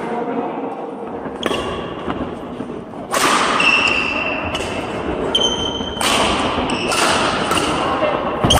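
Badminton rally on an indoor court: sharp racket hits on the shuttlecock and short high squeaks of sports shoes on the court floor, several times.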